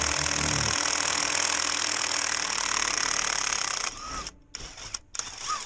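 Cordless impact wrench hammering in a steady rapid rattle, cutting off about four seconds in, followed by a few faint clicks and knocks.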